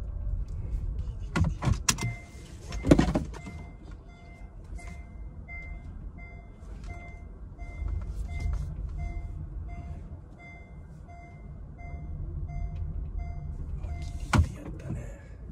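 Car's reverse warning chime inside the cabin, beeping about twice a second while the car is manoeuvred into a parking space, over low engine and tyre rumble. A few clunks come just as the beeping starts, and a sharp click near the end as it stops.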